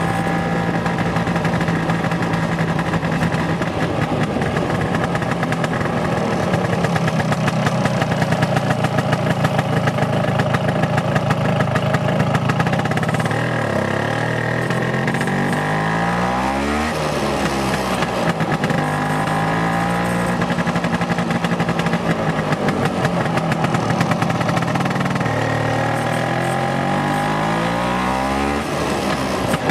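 Vespa PX scooter's two-stroke single-cylinder engine running under way. Its pitch falls and climbs again sharply around the middle and once more near the end, as the scooter slows and picks up speed.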